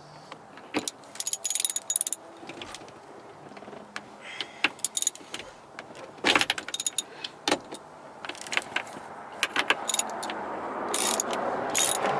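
Metal hand tools, sockets and a ratchet, clinking and clattering as they are handled, in sharp irregular clinks with a high metallic ring. A steadier noise rises near the end.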